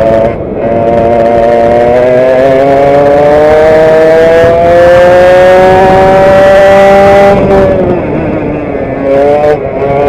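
Vintage direct-drive kart's two-stroke engine heard on board at racing speed. It dips briefly about half a second in, then rises steadily in pitch for about seven seconds as the kart accelerates down the straight, falls away as the throttle is lifted for the corner, and picks up again near the end.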